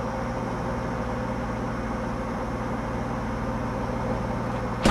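Steady background hum and hiss with no distinct events, and a short click right at the end.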